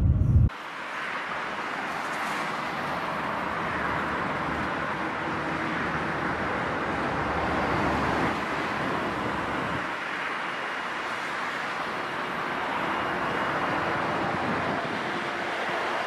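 Steady rushing noise of the Shanghai Transrapid maglev at speed, heard inside the cabin. About halfway through it gives way to the steady noise of expressway traffic beside the maglev line.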